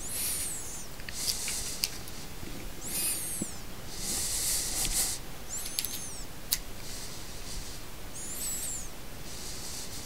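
Cheap 3000 mAh USB power bank emitting high, squeaky chirps that rise and fall, one about every two and a half to three seconds, while it charges a device. This is a sound the owner calls disgusting, and he blames it on the cheaply made charger. A couple of sharp clicks and some hissing rustle come in between.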